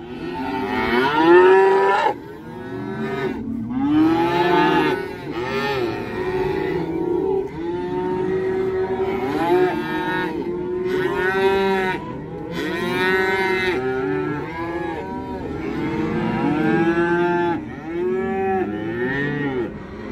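Black beef calves and cows, penned apart across a fence, bawling without a break: many long calls overlap, one starting as another fades.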